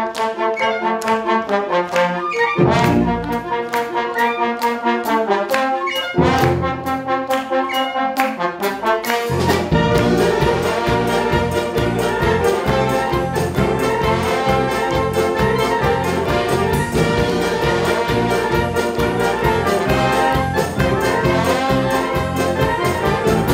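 Wind band playing a medley of Korean popular songs live. For the first nine seconds or so the brass play held, accented chords. After that the full band comes in over a steady drum beat.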